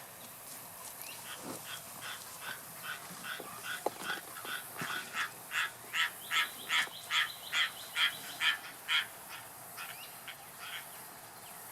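A run of about twenty short, evenly spaced animal calls, two or three a second, growing louder toward the middle and stopping a couple of seconds before the end.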